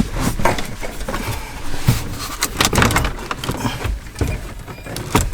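Cables and plastic parts being handled and pulled out from behind a car's dashboard: a run of irregular clicks, knocks and rustles.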